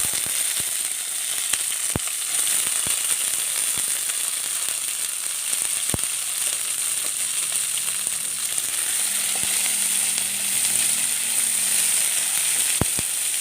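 Whole white bird's eye chillies (kanthari) frying in hot coconut oil with ginger and garlic: a steady sizzle with scattered sharp pops.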